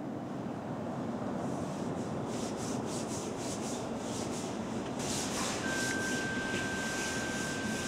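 Rapid rubbing strokes on a surface, about three a second, over a steady low hum. A thin, steady high whine comes in past the middle.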